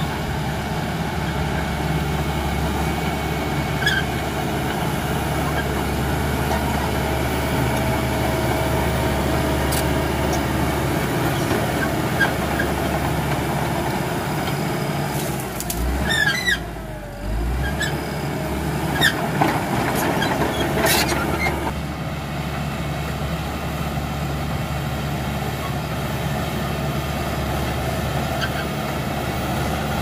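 Caterpillar D5K crawler dozer's four-cylinder diesel engine running steadily under load as the dozer pushes soil, with short squeaks and clanks from its steel tracks now and then.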